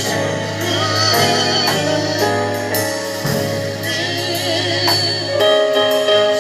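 Gospel praise-and-worship music: singers over a band with a steady drum beat.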